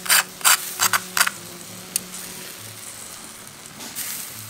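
A knife cutting into the crisp, rendered crackling skin of a spit-roasted whole pig: a quick series of sharp crunches in the first second and a half, one more about two seconds in, and a softer crackle near the end.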